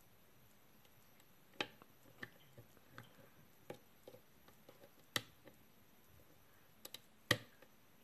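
A hook pick and top-of-keyway tension tool working the pins of a brass pin-tumbler lock cylinder: faint, irregular small metallic clicks and ticks, a double click and then the sharpest click a little before the end.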